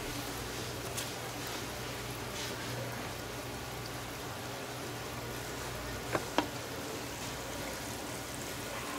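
Steady background hiss with a low steady hum, with a sharp click about a second in and two sharp clicks close together about six seconds in.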